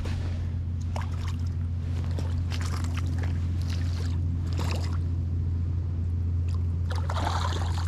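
Footsteps splashing and sloshing in ankle-deep shallow water at the lake's edge, over a steady low hum. The splashes come as short, irregular bursts, with the busiest one near the end.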